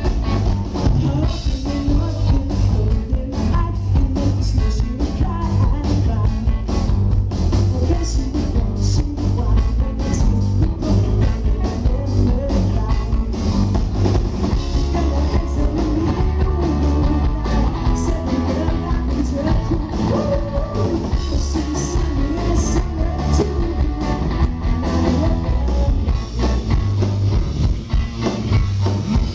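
Live rock band playing loud through a venue's PA: electric guitar, bass and drums, with singing, heard as an audience recording with a heavy, boomy low end.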